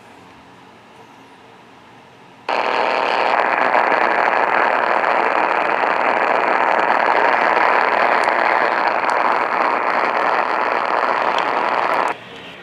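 Radio static: a loud, even hiss that comes on suddenly about two and a half seconds in and cuts off just before the end, after a faint low hiss.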